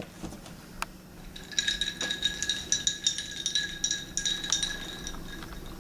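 A spoon stirring a mixed drink in a glass, clinking rapidly against the side for about three seconds with the glass ringing, after a couple of single clicks.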